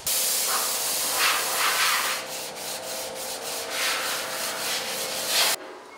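Sanding on a car's body panel: a loud, rasping hiss in uneven strokes, stopping suddenly near the end.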